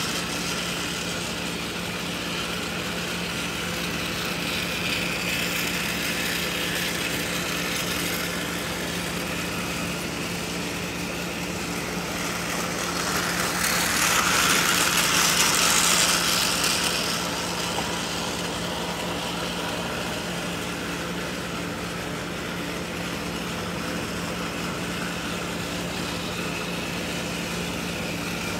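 Battery-powered toy train engines whirring steadily as they run on plastic track, growing louder for a few seconds about halfway through as one passes close by.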